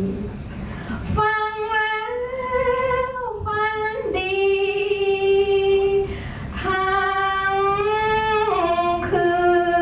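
A woman singing into a hand-held microphone, in long held notes that step up and down, with short breaks between phrases.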